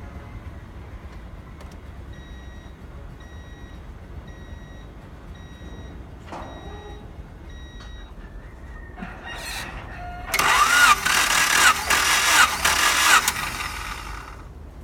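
A 1992 Honda Accord's four-cylinder engine is spun over by the starter motor for about three seconds with its ignition disconnected, so it does not fire. This is cranking for a compression test, and the starter's whine surges up and down several times. Before that, a faint short beep repeats at a steady pace for several seconds.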